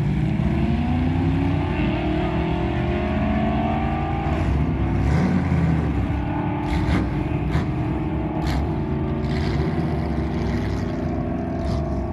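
Car engine at a drag strip accelerating, its pitch climbing over the first four seconds, then running on steadily. There are a few sharp clicks in the second half.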